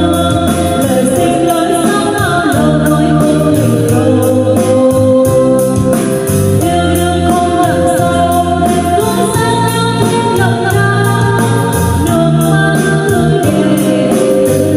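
A woman singing karaoke into a wireless microphone over a backing track with a steady bass line, amplified through an NT2039 mini portable karaoke speaker.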